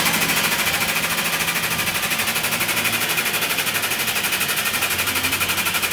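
Hydraulic bend-test press running its pump motor with a steady, rapid pulsing of about a dozen beats a second over a low hum, as it pushes the die down to bend a welded steel test coupon.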